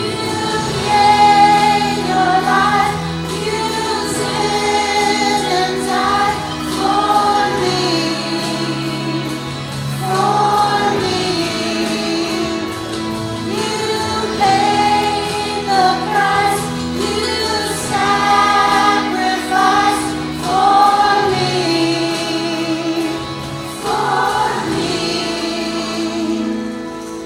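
A group of children and leaders singing a worship song together over musical accompaniment.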